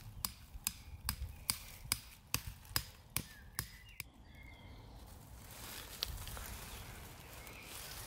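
A wooden stake being hammered into the forest floor with a hand tool: a quick, even run of sharp knocks, about three to four a second, that stops about four seconds in.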